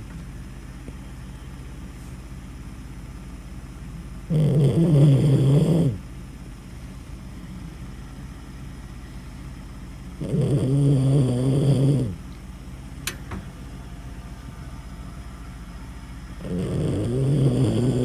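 Miniature dachshund snoring loudly in its sleep: three long snores about six seconds apart, each lasting under two seconds, with quiet breathing gaps between them.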